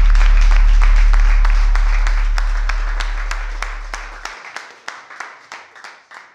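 A crowd applauding, the claps thinning out and dying away, under a deep held bass note that ends the music and fades out about four seconds in.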